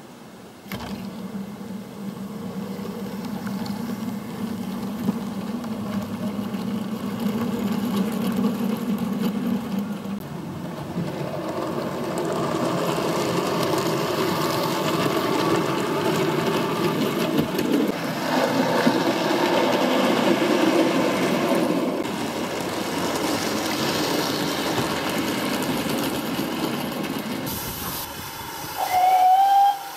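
A model Flying Scotsman locomotive's electric motor hums and its wheels run on the track as the train gets under way, growing louder and fuller as it passes close by. Near the end there is a short, loud pitched tone.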